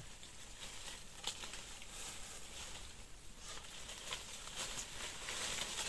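Faint rustling of leaves and branches with scattered light clicks and cracks, as a tough branch is bent and pulled while flowers are picked from it.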